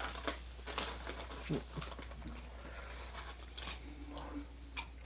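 Chewing crunchy corn chips: irregular soft crunches and mouth clicks.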